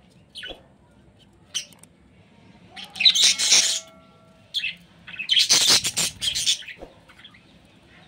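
Budgerigar giving rasping squawks: a few short ones, then two longer, louder ones about three and five and a half seconds in.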